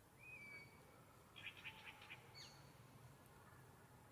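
Faint bird calls: a short whistled note near the start, a quick run of about six chirps around the middle, then a falling whistle.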